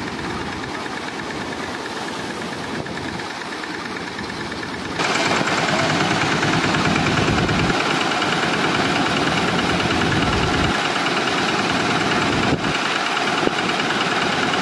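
A motor vehicle's engine running steadily, a dense mechanical din that jumps abruptly louder about five seconds in.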